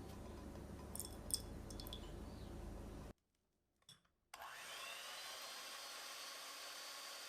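A low hum with a few light clicks, cut off abruptly into a second of near silence. Then a small electric motor starts up: its whine rises over about a second and holds steady over a hiss.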